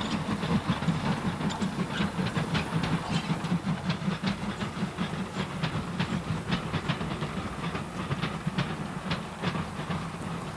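Train running along the track: a steady low rumble with frequent irregular clicks of wheels passing over rail joints.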